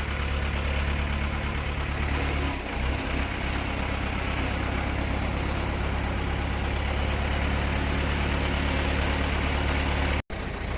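A vehicle engine idling steadily, with a brief dip about two and a half seconds in. The sound cuts out for an instant near the end.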